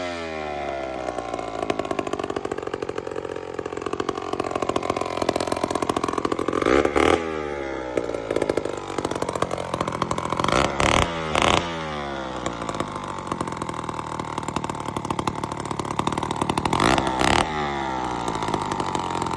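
Titan chainsaw running steadily, blipped up in short, loud revs once about a third of the way in, twice near the middle and twice near the end.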